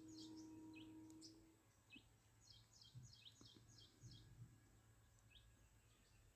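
Near silence with faint bird chirps in the background: scattered single chirps and a quick run of about six short falling chirps between two and a half and four seconds in. A faint steady low hum sounds in the first second and a half.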